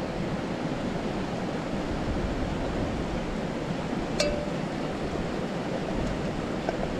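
Steady rush of a river flowing over a rocky bed, with a single short click about four seconds in.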